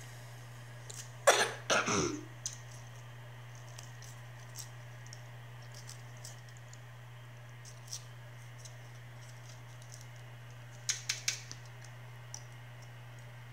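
Plastic MRE jelly pouch being handled and squeezed: faint crinkles and scattered small clicks, with three quick clicks near the end. A brief cough-like throat sound from the child about a second in is the loudest thing, over a steady low hum.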